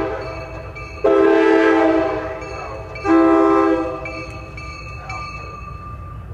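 Nathan M-series locomotive air horn, its number 4 bell blowing short blasts as the valve is pulled and released during voicing. The end of one blast is followed by two more of about a second each, two seconds apart. The bell now sounds a clean, steady note rather than the earlier buzz of a loose, unseated diaphragm.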